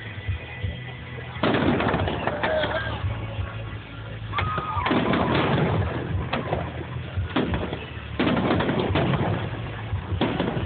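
Fireworks going off: three bouts of dense crackling, each starting suddenly and lasting two to three seconds, about three seconds apart.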